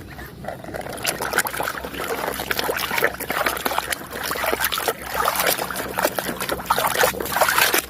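Water trickling and splashing as a muddy toy vehicle is washed, with frequent small irregular clicks and knocks from the toy being handled.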